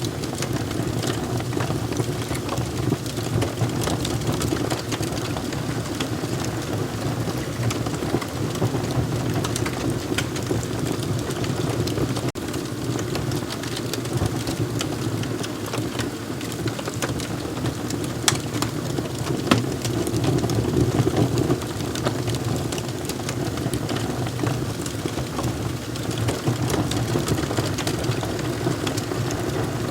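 Wood fire crackling steadily, with many small sharp pops and snaps over a constant low rush of burning.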